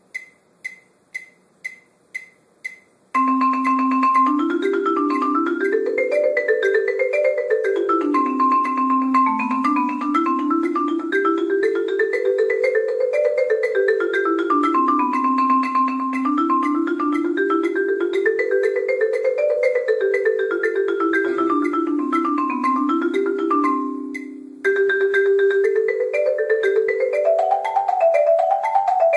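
A count-off of about six clicks, two a second, then a concert marimba played with mallets in fast, even runs of notes that climb and fall in repeated scale-like waves. About 24 seconds in the sound fades and drops out briefly before the runs start again.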